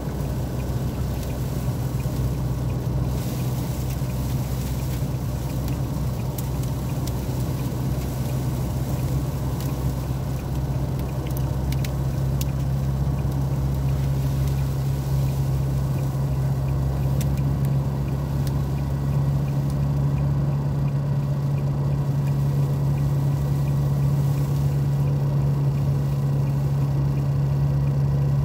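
Inside a moving car: a steady low drone of engine and road noise, with wind rushing over the car in a dust storm and a few faint ticks.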